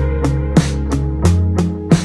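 Music: an instrumental passage of a song, drums keeping a steady beat of about three hits a second over sustained bass notes.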